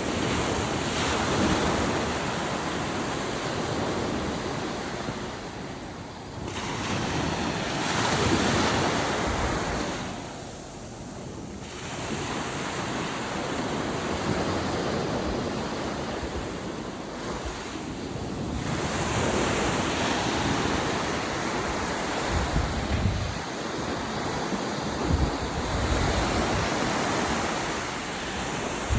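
Black Sea surf breaking and washing onto a beach in surges that swell and ease every few seconds. Wind buffets the microphone, with low gusty rumbles in the second half.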